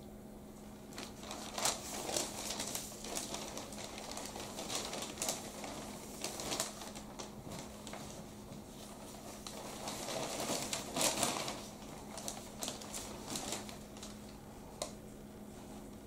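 Brown-eared bulbul pecking at an apple: a run of irregular sharp clicks and taps from its bill tearing the fruit, coming in clusters, over a faint steady hum.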